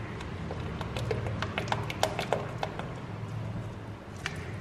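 Spoon or ladle knocking and scraping against a cooking pot as thick payasam is stirred, a run of clinks about one to three seconds in, a few of them ringing briefly, over a steady low hum.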